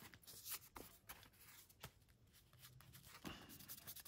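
Faint paper handling: a few light rustles and taps as small paper pieces are moved about.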